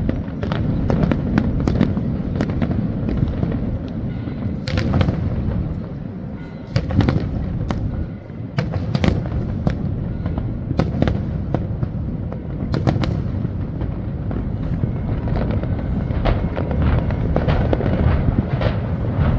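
Fireworks display going off continuously: many sharp bangs and cracks in quick succession over a steady low rumble, the bangs coming thickest around a quarter and two-thirds of the way through.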